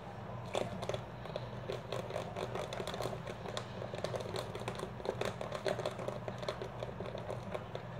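Hands squishing and working a batch of homemade slime, giving a dense, irregular run of small clicks and pops.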